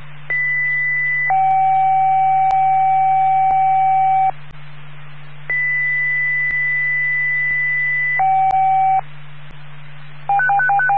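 Radio dispatch paging tones over a scanner: a steady high tone for about a second, then a lower tone held for about three seconds. After a pause comes another long high tone and a short low one. Near the end a fast alternating beep starts, and a low hum and hiss run throughout.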